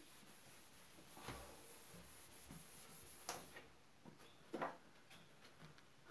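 Near silence with three faint clicks and taps, from a whiteboard duster and marker being handled and set down on the board's tray.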